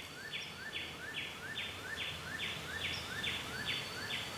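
A steady, regular series of short chirping calls from a calling animal, about two and a half a second, each a quick rising note. A faint, steady high whine runs underneath.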